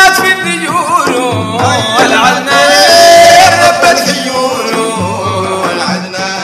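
Sudanese madeeh, Sufi praise singing: male voices sing a wavering, ornamented melodic line over a low pulse. A long held note comes about halfway through.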